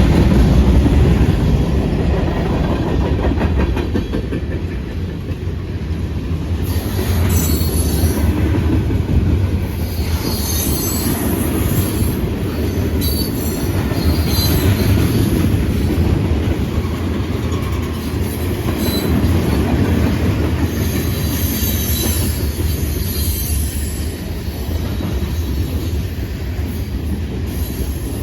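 Freight train cars rolling past with a steady low rumble and wheel noise, with high-pitched wheel squeal coming and going from about a quarter of the way in.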